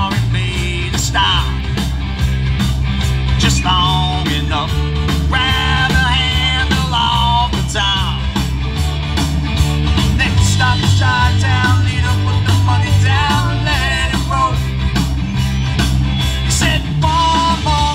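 Live rock band playing through a PA: drums keep a steady beat under bass and electric guitars, with a melody line weaving above.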